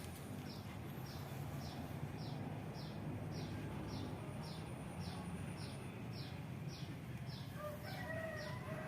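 A chicken calling briefly near the end, over a steady low hum and a regular high chirp repeating about twice a second.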